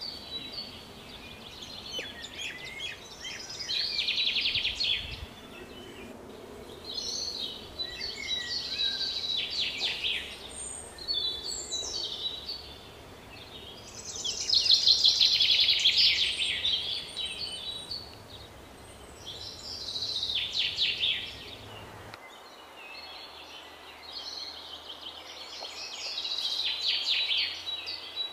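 Birds singing: bouts of rapid, high chirping trills that come every few seconds, over a faint steady background rumble that drops away about three quarters of the way through.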